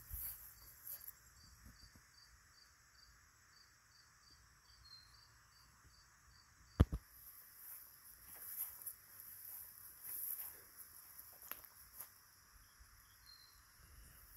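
A cricket chirping faintly in an even rhythm, about three chirps a second, through the first half. One sharp click about seven seconds in is the loudest sound.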